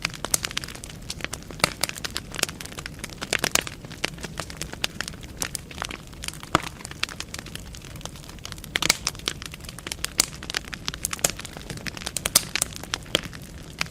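Wood fire burning in a fireplace: logs crackling and popping with many irregular sharp snaps over a low steady hiss.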